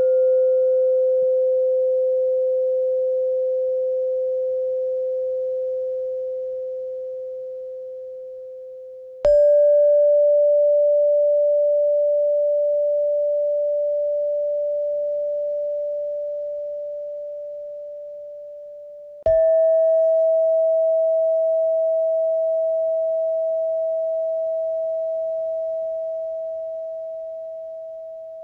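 Clear, nearly pure bell-like tones, each struck once and left to ring and fade slowly; they mark the breathing phases: breathe in, breathe out, hold. The first is already ringing, and a new tone, each a little higher, is struck about nine seconds in and again about nineteen seconds in.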